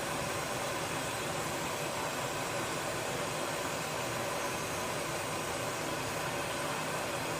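Steady hiss of gas releasing from a kitchen gas appliance, even and unbroken throughout.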